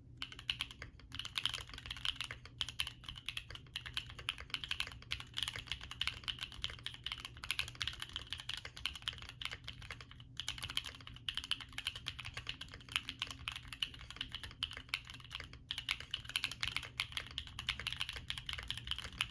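Fast, continuous typing on a Bakeneko60 mechanical keyboard with stock Gateron Baby Raccoon linear switches, FR4 plate, polyfil-filled case and double-shot Cherry-profile PBT keycaps: dense key clacks with a few short pauses.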